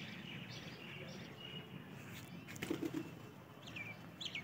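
Faint flapping of domestic pigeons' wings as they fly and land, with two short high bird chirps near the end.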